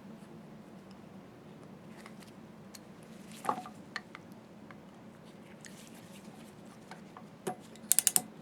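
Scattered light clicks and taps of small metal parts being handled, with a quick run of four sharp clicks near the end, over a steady faint hum.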